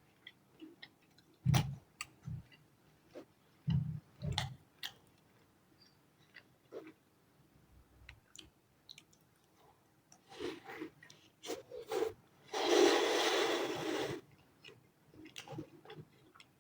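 Close-miked eating of a chicken shami burger: scattered bites and chewing, with soft thumps and sharp clicks of mouth sounds. About thirteen seconds in comes a longer, denser noise lasting about a second and a half.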